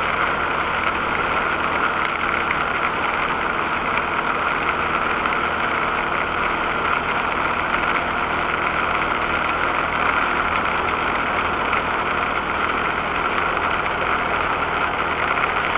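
Rastrojero pickup's engine running steadily on the move, with a constant hiss of tyres on a water-covered road, heard from inside the cab.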